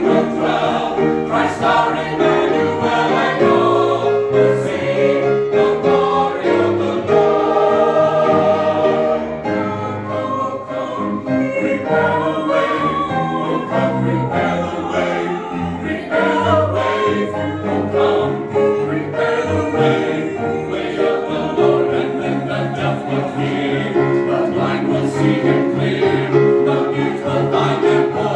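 Church chancel choir singing a Christmas anthem in several voice parts, holding chords that move from note to note.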